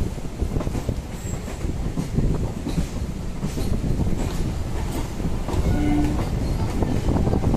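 Kolkata suburban electric local train running along the track: a steady rumble full of rapid knocks and rattles from the wheels and carriages. A brief pitched tone sounds about six seconds in.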